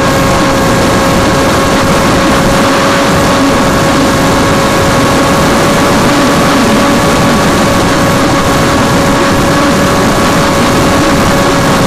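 Electric motor and propeller of a Caipirinha FPV flying wing, heard through its onboard camera: a loud, steady propeller whine holding nearly one pitch, over heavy wind rush.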